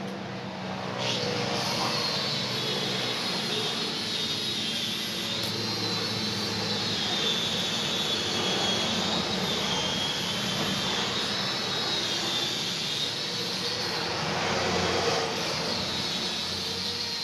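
Angle grinder spinning up about a second in, then running on steel with a high whine that dips and recovers as it bites into the work.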